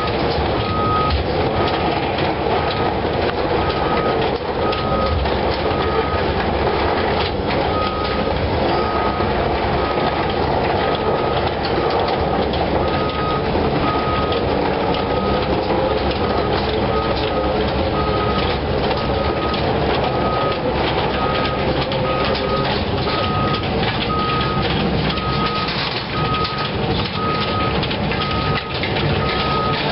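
Caterpillar long-reach amphibious excavator running and travelling on its pontoon tracks, a dense rough engine-and-track noise with its travel alarm beeping about once a second, pausing now and then.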